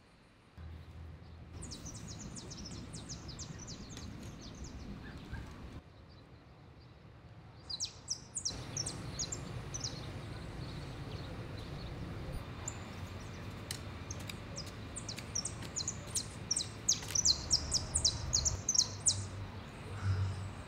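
Small birds chirping in quick runs of high, sharp notes over a steady low outdoor background rumble. The chirping breaks off for a couple of seconds about midway, then returns and goes on busily.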